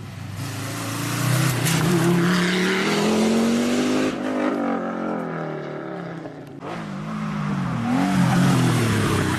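Historic rally car engines revving hard under acceleration, the pitch climbing and falling as they pull through the gears. The sound changes abruptly about four seconds in and again around six and a half seconds, as one car gives way to the next.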